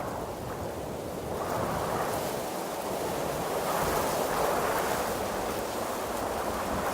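Wind blowing through trees: a steady rushing of leaves and branches that swells in gusts, growing stronger about two seconds in and again around four seconds.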